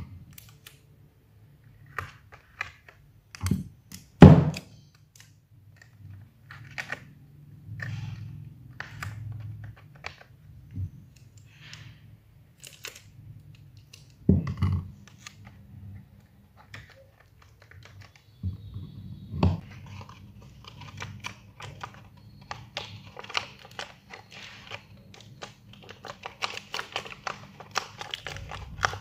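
Hands working craft materials on a table: scattered taps and knocks with a few louder thunks, then a dense run of crinkling over the last few seconds.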